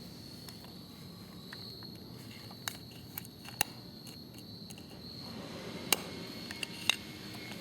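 Steady high-pitched chirring of crickets, with a handful of sharp clicks and taps scattered through, the loudest about six and seven seconds in.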